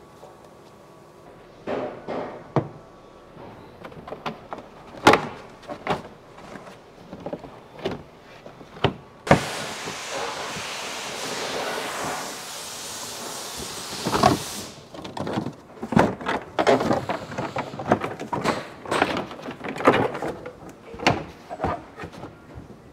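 Plastic inner fender splash shield being worked out of a pickup's wheel well: repeated sharp clicks and knocks of push clips popping and plastic liner flexing and knocking, with a loud steady rushing scrape lasting about five seconds in the middle. The push clips are not coming out cleanly.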